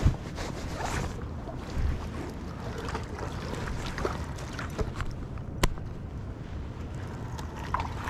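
Footsteps and scuffs on concrete steps and gravel at the river's edge, with scattered small knocks and one sharp click about five and a half seconds in, over a steady low rumble.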